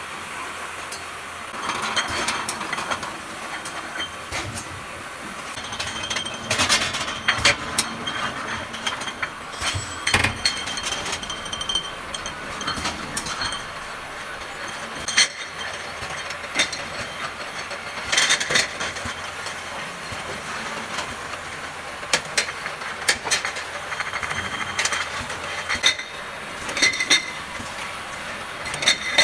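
Glass bottles clinking against one another and against the guides as they move along a running bottling line, over the steady running noise of the machinery. The clinks come irregularly, several every few seconds.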